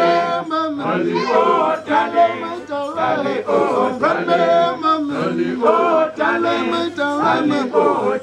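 A teenage vocal group singing a cappella, several voices together with men's voices prominent, in short rhythmic phrases.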